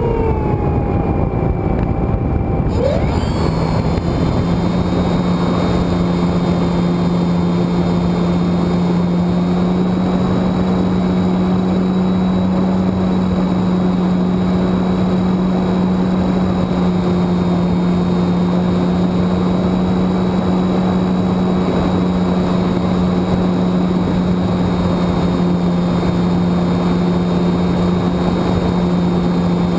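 Electric brushless outrunner motor (3548-09) spinning an APC 14x7 propeller on a foam RC airplane, heard from an onboard camera with heavy wind rush. Its pitch falls over the first three seconds, then holds a steady drone.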